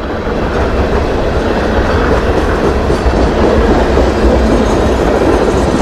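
Freight cars of a manifest train rolling past on the rails: a loud, steady rumble of wheels and cars that builds in the first half second and then holds.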